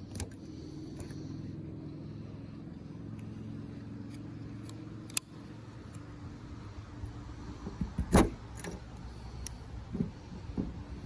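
A steady low motor hum, like a vehicle engine running nearby, which weakens about five seconds in. Scattered clicks and knocks sit over it, the loudest a sharp knock about eight seconds in.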